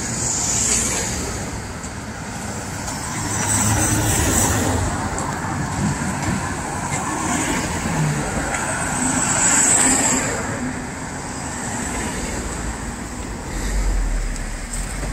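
Road traffic: cars passing on a street close by, the noise swelling and fading as each goes past, loudest about four seconds in and again near ten seconds.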